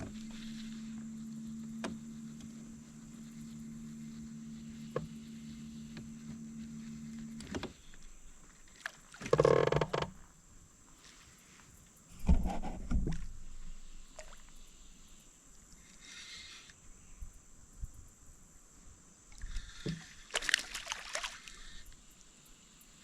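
Small electric boat motor humming steadily with a low pitch, then cutting off a third of the way in. A few loud thumps and rustles on the boat follow.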